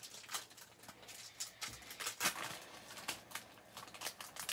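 Foil wrapper of a baseball card pack crinkling and tearing as hands pull it open, in a run of irregular crackles.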